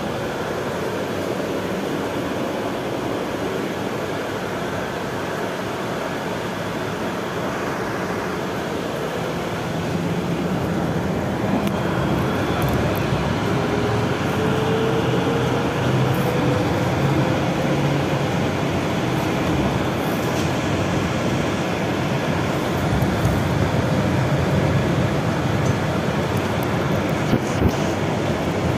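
Cabin noise inside a moving BKM 32100D electric trolleybus: steady running and tyre noise that grows a little louder about ten seconds in, with a faint rising whine from the traction drive a few seconds later as it gathers speed.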